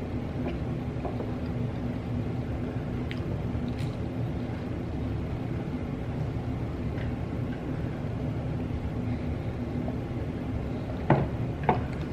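A person eating: faint chewing and mouth clicks over a steady low hum, with two sharp knocks near the end.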